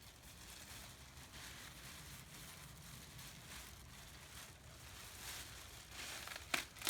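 Faint rustling and handling noise, then a few sharp crinkles about six and a half seconds in.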